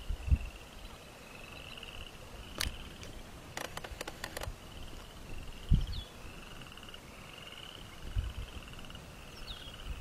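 A wild animal's high, buzzing trills, repeating in short phrases, each group opening with a brief falling note. Over them come a few sharp clicks in the middle and a couple of low rumbles.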